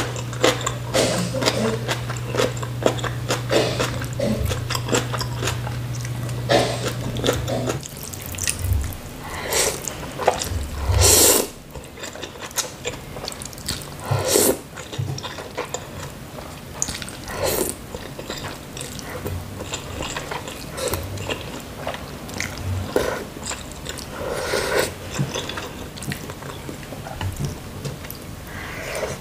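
Close-miked mukbang eating sounds: noodles in spicy soup being slurped and chewed, with wet mouth clicks and several louder slurps, the loudest about eleven seconds in. A steady low hum runs underneath and cuts off about eight seconds in.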